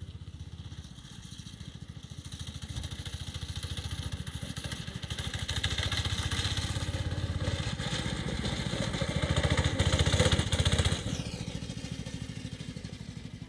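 Go-kart's small engine running under throttle, getting louder to a peak about ten seconds in, then dropping off suddenly about eleven seconds in as the revs fall.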